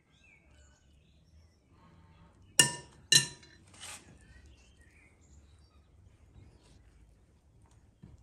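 Two sharp, ringing clinks about half a second apart, then a fainter third: a spoon knocked against the rim of a glass mixing bowl to shake off greens filling. Faint birdsong chirps in the background.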